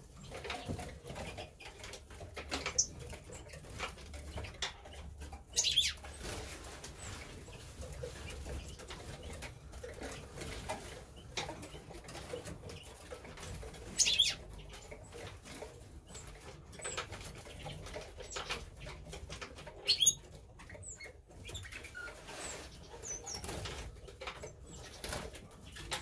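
Small aviary songbirds (finches and canaries) fluttering their wings as they fly about and land, with short high chirps and call notes now and then. The loudest bits come about 6, 14 and 20 seconds in.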